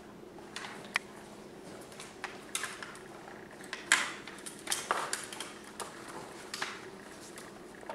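English bulldog puppies' paws and claws scrabbling on a plastic potty-pad tray and tile floor, crinkling the pad: scattered light clicks and rustles, the sharpest about four seconds in and a cluster around five seconds.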